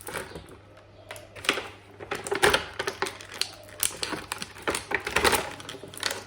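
Action-figure packaging and small plastic accessories being handled as the figure's blaster weapons are taken out of the box: irregular plastic clicks and knocks, louder about two and a half seconds in and again near the end.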